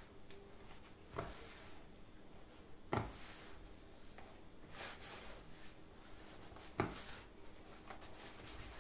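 Hands kneading a soft, sticky pide bread dough: quiet rubbing and pressing, with three dull thumps as the dough is pushed down and folded.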